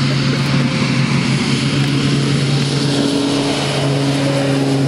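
Twin-turboprop RAF Beechcraft King Air rolling on the runway, its propellers droning with a steady low tone over a wide hiss of engine noise.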